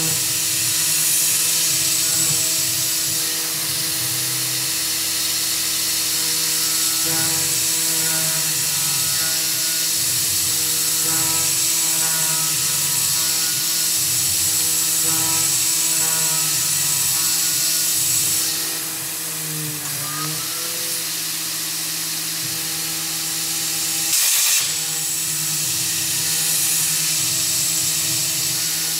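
Tormach 440 CNC mill cutting aluminum with a 3/16-inch carbide end mill: the spindle and cut run continuously under a steady high hiss, while several whining tones shift in pitch as the machine moves through the toolpath. A little before two-thirds of the way through, the tones dip and rise again, and a short sharp burst follows a few seconds later.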